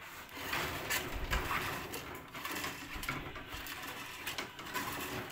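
Irregular rustling and scraping with small clicks, the sound of a wire and a phone being handled up close.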